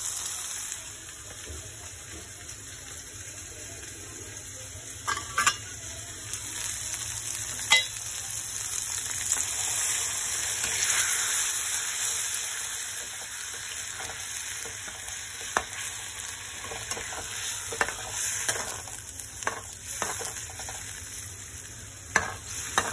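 Spiced masala and potatoes sizzling steadily in hot oil in a pan as a little water is stirred in, turning it to gravy. A spatula scrapes and taps against the pan now and then.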